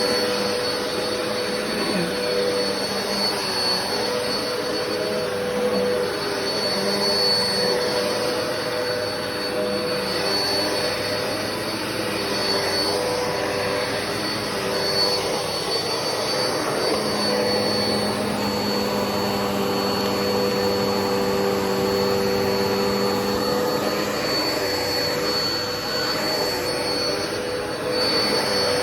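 Black and Decker vacuum cleaner running steadily, its motor giving a continuous whine with a hiss of airflow.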